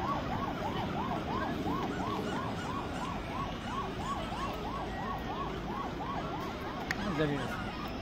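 An electronic siren warbling quickly, rising and falling about three times a second, over the hubbub of a crowd; it breaks off about six and a half seconds in, with a short knock just before it starts again.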